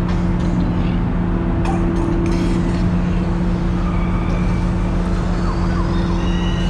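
Steady machinery drone at a constant level: a low mechanical hum with two steady tones over a rumble, like a generator or engine running without pause. Faint high squeaks come through over it in the second half.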